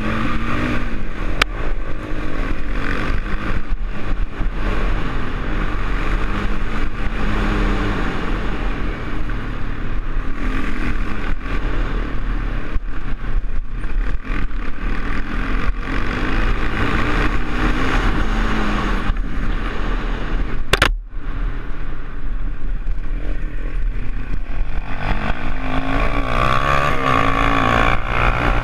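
ATV engine running under way, its revs rising and falling again and again, with heavy wind rumble on the microphone and rattling over rough ground. A single sharp click about two-thirds of the way through.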